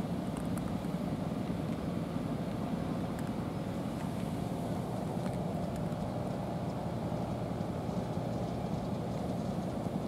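A steady low rumble with a faint hum in it.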